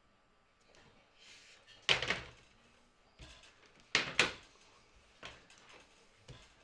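Small whiteboards set down on a wooden table: three sharp knocks, one about two seconds in and two close together about four seconds in, with a few lighter taps between.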